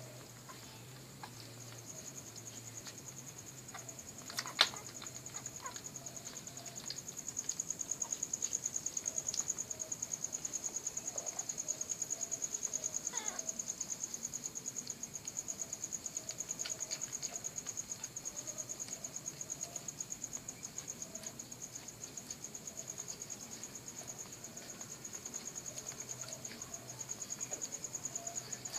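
A steady, high-pitched insect trill with a fast, even pulse, growing louder about seven seconds in. A single sharp click comes about four and a half seconds in.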